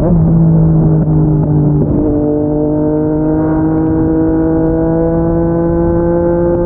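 Yamaha MT-09 inline three-cylinder engine through a Yoshimura R55 slip-on exhaust, running under load at road speed. About two seconds in, the engine note breaks and changes, then climbs slowly in pitch as the bike pulls, over a steady rush of wind and road noise.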